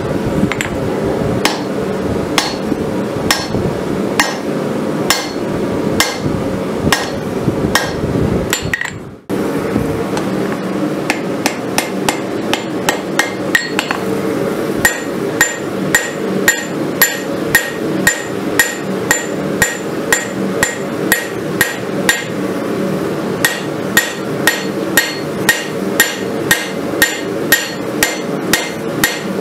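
Hand hammer striking a red-hot steel rasp on an anvil while rough-forging a kukri blade: blows about once a second, then after a brief gap about nine seconds in, faster at about two a second with a short metallic ring on each strike. A steady low rumble runs underneath.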